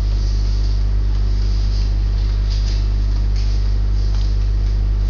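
Steady low electrical hum with a background hiss, and a few faint clicks a little past halfway.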